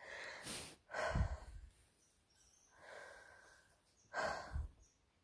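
A person breathing out heavily and sighing close to the phone's microphone, four separate breaths.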